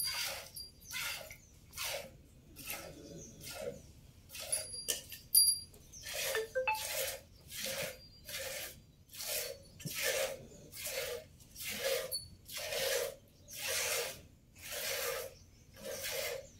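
Hand-milking a cow: jets of milk squirting into a steel pot in a steady rhythm, each squeeze a short hiss, about one and a half a second, less even in the first few seconds.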